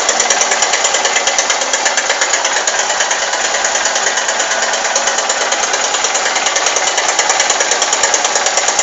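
Honda CG Titan 150's single-cylinder engine running steadily with a fast, even 'tec tec' ticking from the motor, the strange noise whose cause the owner does not know.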